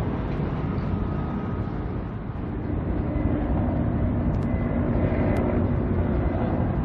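Low rumble of a ship's engine over harbour wind. A steady hum comes in and grows louder about two and a half seconds in.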